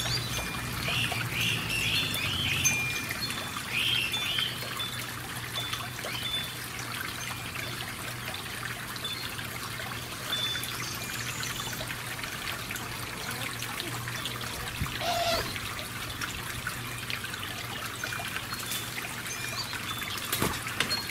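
Water trickling and splashing steadily, with a few short high bird chirps in the first few seconds.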